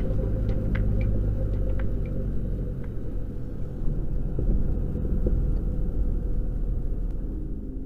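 Cockpit sound of a Scottish Aviation Bulldog's Lycoming four-cylinder engine running at low power, with the wheels rumbling on the runway during the landing roll. Light rattles and clicks come in the first couple of seconds, and the sound fades down near the end.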